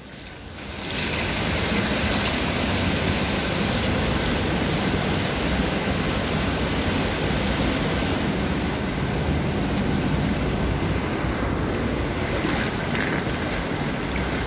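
Loud, steady rush of flowing water, fading in over the first second.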